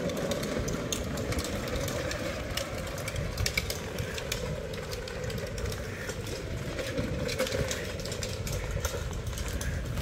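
Electric wheelchair motors on a home-built cart humming steadily as it drives away, over a low rumble.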